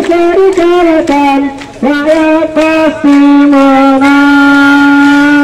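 A single voice singing a slow melody in drawn-out notes, ending on a long held note of about two and a half seconds that breaks off abruptly.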